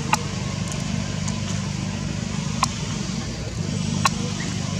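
A steady low hum with a hiss above it, broken by three sharp clicks: one just after the start, one midway and one near the end.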